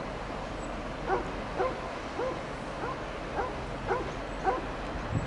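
A dog giving short, high whining yelps, about two a second, repeated through most of the clip.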